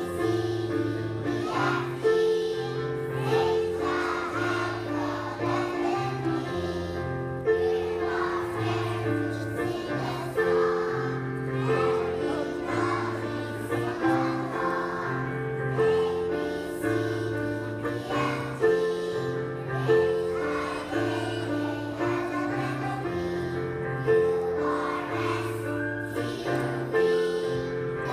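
A choir of young kindergarten children singing together over an instrumental accompaniment, with a bass line that moves to a new note every second or so.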